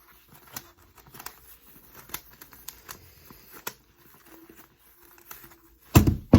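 3x3 Rubik's cube being turned by gloved hands: scattered soft clicks and rattles of the plastic layers turning. A loud thump comes near the end.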